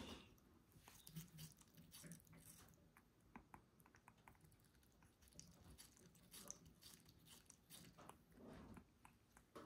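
African grey parrot biting and scooping into a slice of watermelon held in a hand: faint, irregular clicks and crunches of its beak in the flesh.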